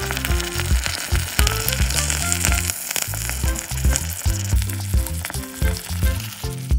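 Sizzling of a meat, onion and tomato sauce frying in a miniature steel wok, strongest in the first few seconds, while grated cheese goes in. Background music with a bass line plays underneath.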